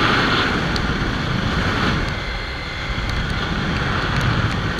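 Riding noise from a Kawasaki Ninja 300 on the move: wind rushing over the microphone with the bike's parallel-twin engine running underneath, easing briefly about two seconds in.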